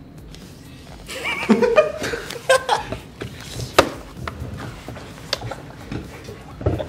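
Young men laughing and chuckling, loudest about a second in, with a few sharp hits mixed in.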